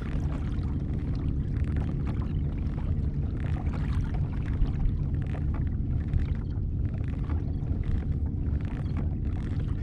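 Water sloshing and splashing against a kayak's hull over a steady low rumble.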